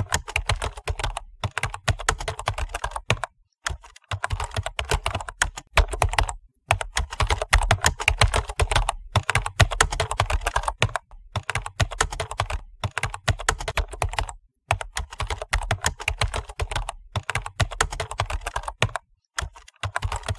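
Computer keyboard typing sound effect: fast, continuous key clicks broken by short pauses every two to three seconds.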